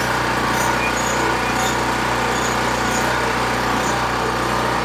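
Champion 3000-watt portable generator's small gasoline engine running steadily at a constant speed, while its alternator puts out no power.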